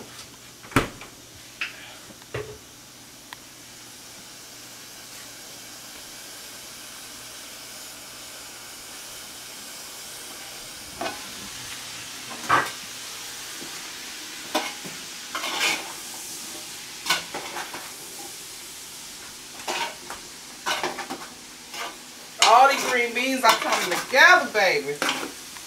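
Green beans sautéing in an aluminum pot, a steady sizzle that slowly grows louder. Metal tongs knock against the pot now and then. In the last few seconds, as the beans are tossed, the tongs clatter and scrape hard against the pot.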